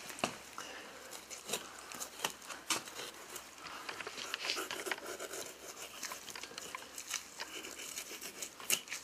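Knife cutting and scraping meat away from a deer's rib cage: irregular small clicks and wet tearing of flesh, with no steady rhythm.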